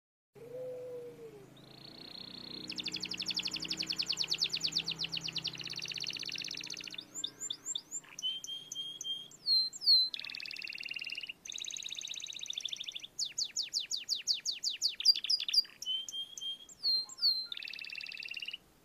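Canary singing a long, varied song: fast rolling trills, buzzy passages and clear falling whistled notes, phrase after phrase with short breaks.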